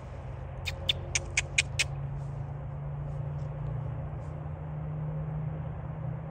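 Six sharp, squeaky clicks in quick succession, about five a second, then a few fainter ones, over a steady low rumble.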